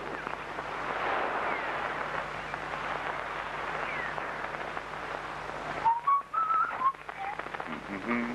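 A steady hiss-like background, then about six seconds in a man whistles a short tune of a few clear, separate notes.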